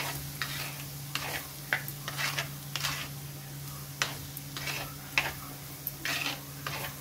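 Metal-ended spoon stirring and scraping chopped beetroot and spice powders around a clay pot, in short strokes about every half second, over a faint sizzle of the mixture frying in oil.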